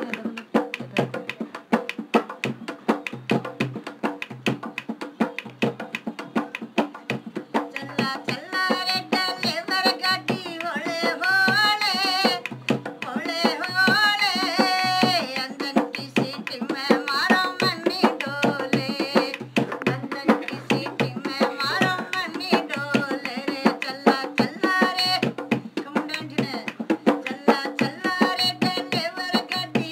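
Live Rajasthani folk music: a dholak drummed in a fast, steady rhythm, with a singer's voice joining about eight seconds in.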